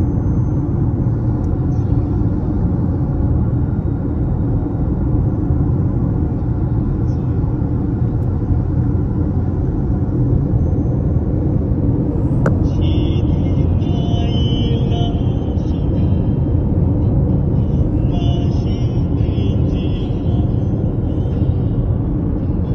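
Steady low road rumble of a car travelling at highway speed, heard from inside the cabin: tyre and engine noise with no words.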